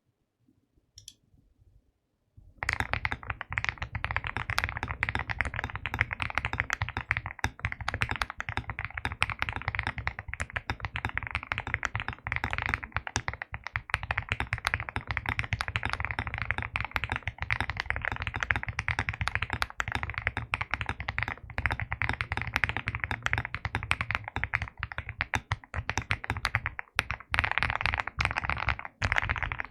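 Luminkey65 mechanical keyboard with hand-lubed, filmed Morandi linear switches, foam and tape mods and OTC 9009 keycaps, being typed on quickly and continuously. The typing starts about two and a half seconds in.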